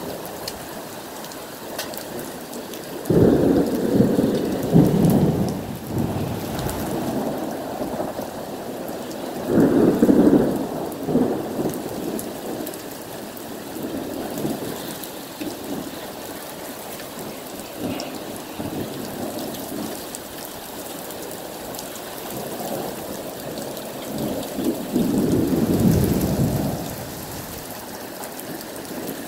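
Heavy rain falling steadily during a thunderstorm, broken by three rolls of thunder: a sudden loud one about three seconds in that rumbles on for a few seconds, a shorter one around ten seconds in, and a third near the end.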